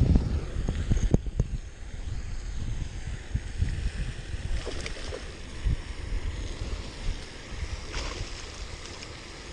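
Wind rumbling on the microphone, with water sounds and a few sharp clicks or splashes while a hooked bass is fought on the line.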